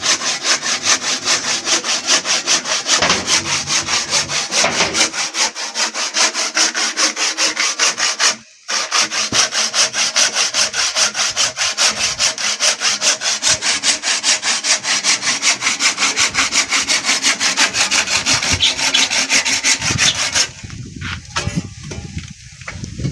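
Hand saw cutting through wood in fast, even strokes. It pauses briefly about eight seconds in and stops about twenty seconds in.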